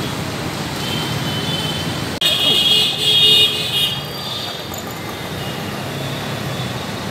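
Steady city street traffic, with a vehicle horn sounding for about a second and a half, starting about two seconds in.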